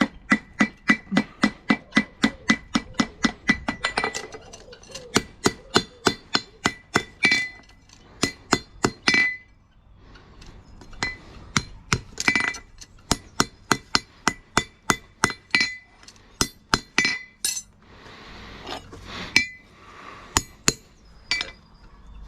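Farrier's hammer striking metal in quick runs of light blows, about three a second, each with a high ringing clink, broken by short pauses.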